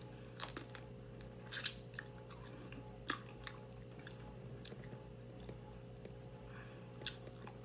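Soft chewing and mouth noises from eating a baked chicken wing, with about eight short crisp clicks and smacks scattered through, over a faint steady hum.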